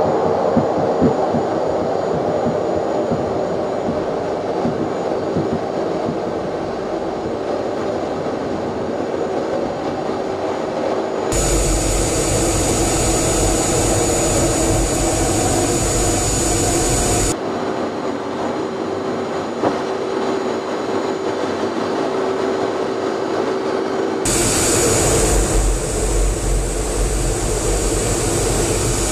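An F/A-18's twin jet engines heard inside the cockpit at high power through the takeoff roll and climb, as a loud, steady noise. The tone and brightness of the noise change abruptly three times as the recording cuts between cockpit microphones.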